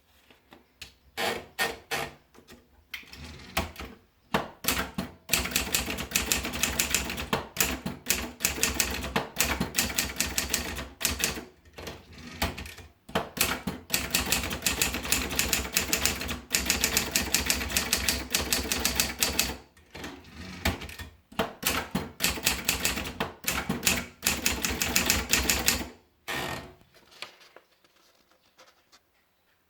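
Adler Junior 12 manual portable typewriter being typed on: rapid keystroke clacks in long runs broken by short pauses, dropping to a few faint clicks near the end.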